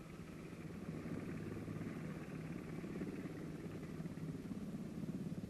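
Steady low mechanical rumble of an engine running, with a constant hum; it grows slightly louder about a second in.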